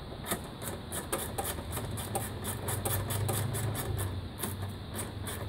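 Rapid small clicks and rattles of a plastic part being handled and pushed into place in a car's engine bay, over a low steady hum that is loudest in the middle.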